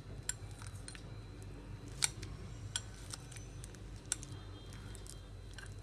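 Steel fork mashing ripe peeled bananas in a plate, its tines clicking lightly and irregularly against the plate, with sharper clicks about two seconds in and about four seconds in.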